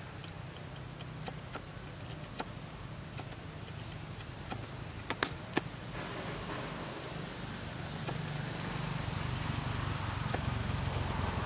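Low, steady engine rumble from a motor vehicle that grows louder near the end, with scattered light clicks and crackles, two of them sharper about five seconds in.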